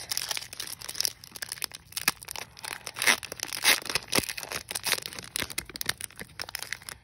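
Foil wrapper of a Pokémon card booster pack crinkling and tearing as it is worked open by hand: a dense, irregular run of sharp crackles.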